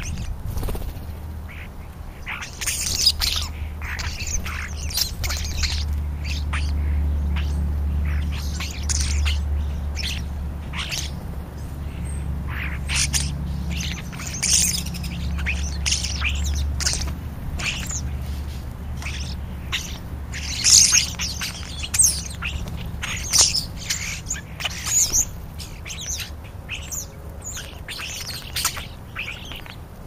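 A flock of European starlings feeding and calling, many short, sharp high calls in quick succession, loudest about two-thirds of the way through. A steady low rumble runs underneath.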